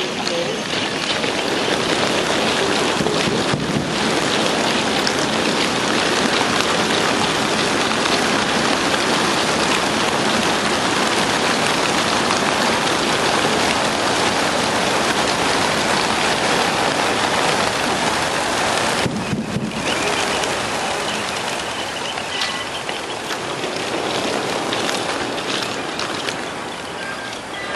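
Racing pigeons released all at once from a transport truck's crates: the wingbeats of a large flock make a loud, dense, even rush. It eases off over the last few seconds as the last birds leave.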